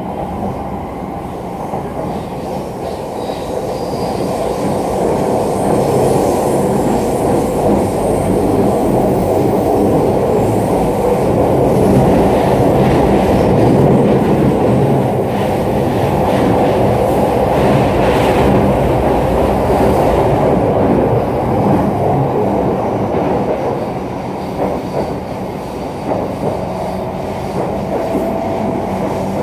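Running sound inside an E231-series electric commuter car that still has its original, unrenewed drive equipment: wheels on rail and traction motors at line speed. It grows louder toward the middle and eases off a little in the last third.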